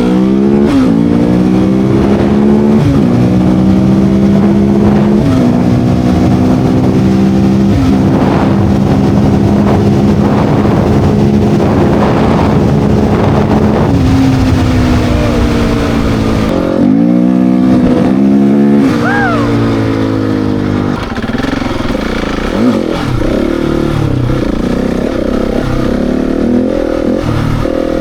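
Husqvarna 701 Enduro's single-cylinder engine under way. It pulls through the gears, the pitch dropping at each upshift in the first few seconds, then holds a steady cruise. About two-thirds of the way in the throttle closes and it downshifts, and the revs then run lower and uneven.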